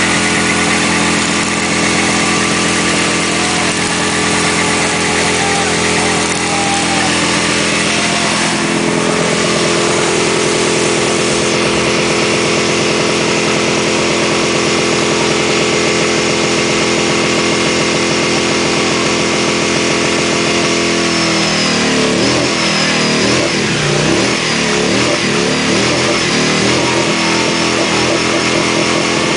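Cruiser motorcycle engine held at high revs during a burnout, its rear tire spinning. A steady drone that steps up in pitch about nine seconds in, then wavers up and down unevenly from about twenty-one seconds on.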